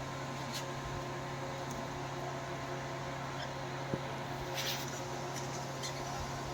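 A steady mechanical hum with a few faint, short scratching ticks, the clearest a little after the middle.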